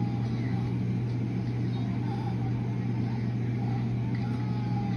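Steady low mechanical hum with faint distant voices in the background.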